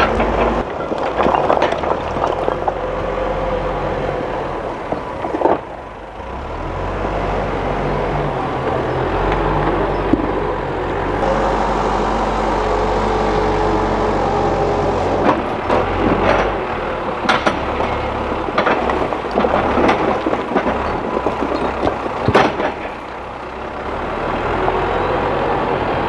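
Hidromek HMK 102B backhoe loader's diesel engine running under load, its pitch shifting as the front bucket works. In the second half come a series of sharp knocks and clatters of rock striking the steel bucket and tumbling out, the loudest near the end.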